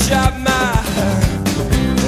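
Background music: a song with a sung vocal over guitar and a steady drum beat.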